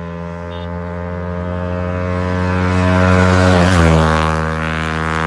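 A motorcycle passing at speed: its steady engine note grows louder as it approaches, drops in pitch as it goes by about four seconds in, and then fades as it moves away.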